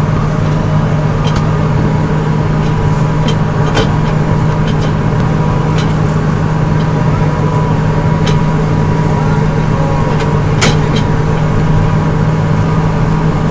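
A vehicle engine running steadily with a low, even drone, and a few sharp knocks over it.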